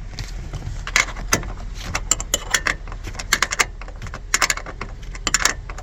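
Sharp metallic clicks and rattles in irregular clusters, starting about a second in, over a steady low hum.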